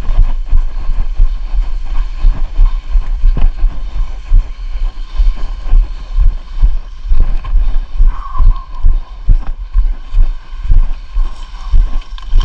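Wind buffeting the microphone: a heavy low rumble with irregular gusty thumps.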